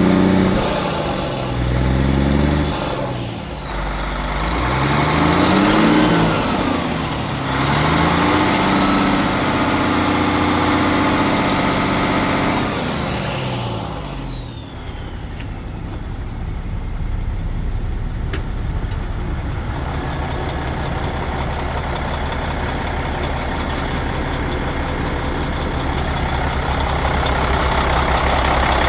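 Mercedes-Benz OM460LA inline-six diesel engine revved up and down several times, then settling back to a steady idle about halfway through.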